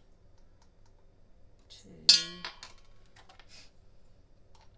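A jar of active dry yeast being opened and measured from: a short loud squeak about two seconds in, then a series of light clicks and scrapes as a measuring spoon digs into the granules.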